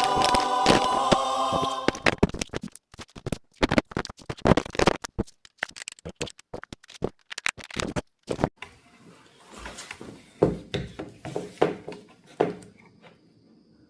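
Choral music for about two seconds, cutting off abruptly, followed by a run of sharp clicks and knocks with short silent gaps between them, thinning out near the end.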